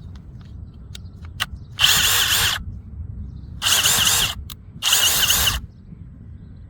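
Ridgid R862312 Mini Torque 1/2-inch cordless impact wrench hammering on lug nuts in three short bursts under a second each, after a few faint clicks.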